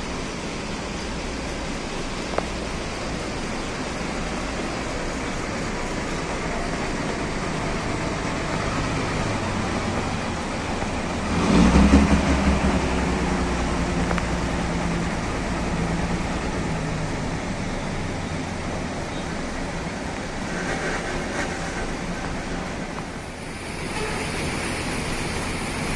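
Coach's diesel engine running as the bus manoeuvres; about eleven and a half seconds in, its exhaust swells into a loud blast, then runs on with a steady engine note that fades over the next few seconds.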